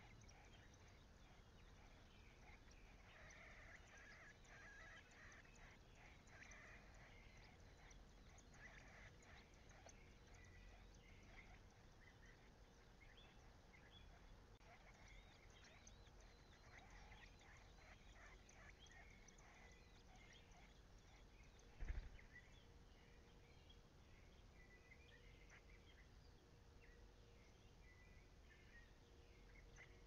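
Faint, rapid high-pitched chirping of begging songbird nestlings, busiest in the first several seconds, with one dull thump about two-thirds of the way through.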